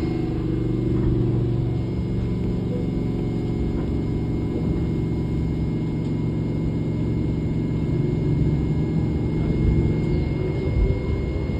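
Inside a Tobu 10030 series electric commuter train while it runs: a steady low rumble of wheels on rail under a level hum from the motors and gears. It turns rougher, with a few louder knocks, in the last few seconds.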